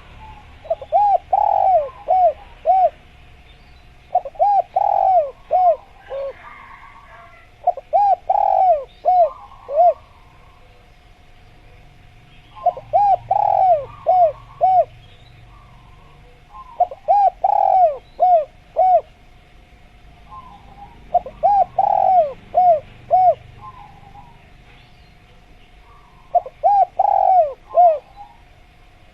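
Spotted dove (tekukur) cooing: seven phrases of four or five arched coo notes each, repeating about every four seconds.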